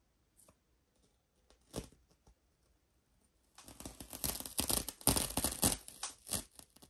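A single light tap, then about three seconds of crackling, tearing noise from masking tape being pulled and pressed onto a canvas.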